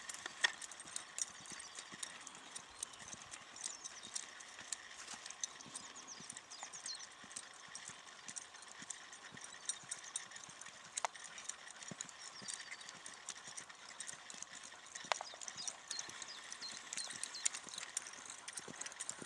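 Hoofbeats of a ridden horse on a sand arena, an uneven run of soft thuds and clicks as it moves at walk and canter.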